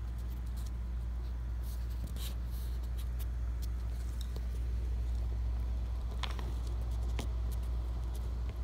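Phone being handled close to its microphone: fingers rubbing and tapping against it give scratchy rustles and a few clicks over a steady low hum.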